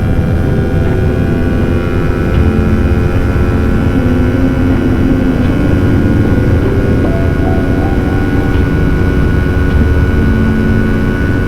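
Sport motorcycle engine running steadily at cruising speed on the road, its pitch shifting slightly partway through, with low wind rumble on the helmet microphone.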